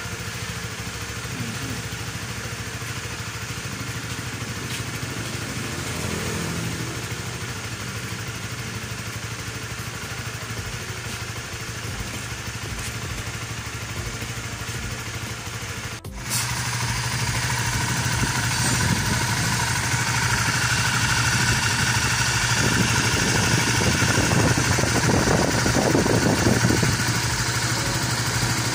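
Honda RS150's single-cylinder engine idling steadily, freshly fitted with a manual cam chain tensioner meant to cure the rattle of the stock automatic tensioner. Just past halfway there is a short break, after which the engine is heard closer and louder.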